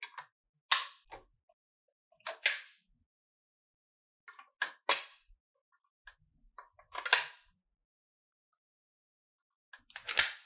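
Vacuum cleaner tools pushed into the plastic tool clips of a charging dock: five sharp plastic clicks a couple of seconds apart, each just after a brief light knock as the tool meets the clip.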